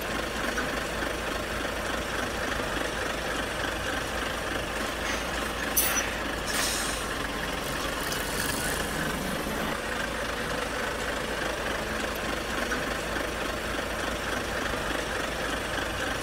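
A large engine idling steadily, with a couple of short hisses about six seconds in.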